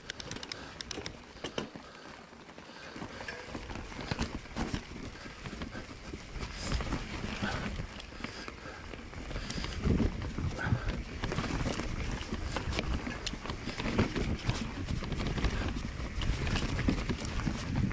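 Mountain bike rattling over a rough, rooty trail: a dense, irregular run of knocks and clatter from the frame and drivetrain over a low tyre and wind rumble, which gets louder about three seconds in.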